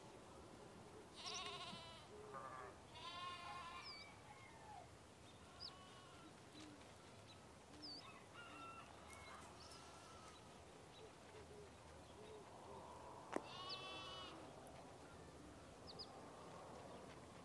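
Kitten mewing: a few short, high, wavering mews, spread out, with faint high chirps between them. A sharp click comes about thirteen seconds in.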